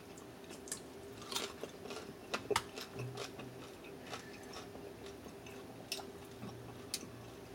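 Chewing and crunching of boiled shrimp, with small clicks and cracks as the shells are pulled apart by hand. The sharpest cracks come as a pair about two and a half seconds in.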